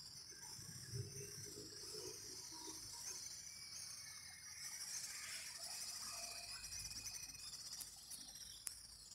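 Steady high-pitched buzzing of an insect chorus, with a faint low rumble underneath and a single sharp click near the end.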